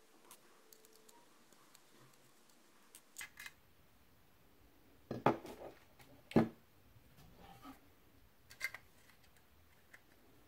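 Light clicks and metallic clinks of a thin sheet-metal laptop hard-drive mounting rail being handled, with two louder knocks a little past midway.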